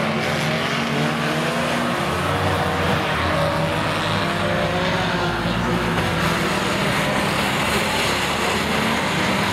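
Several banger-racing cars' engines running and revving together as they race round the oval, pitch shifting up and down.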